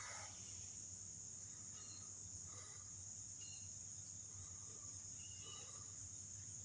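Faint, steady, high-pitched chorus of insects in the woods, with a few faint short chirps scattered through it.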